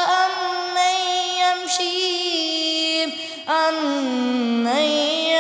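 A single reciter's voice chanting the Quran in melodic tajweed style, drawing out long held, ornamented notes. There is a short break about three seconds in before the next phrase begins.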